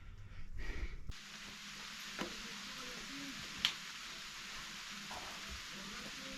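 Light rain hissing steadily, with two sharp ticks a second and a half apart. About the first second is low rumble, which cuts off suddenly as the hiss begins.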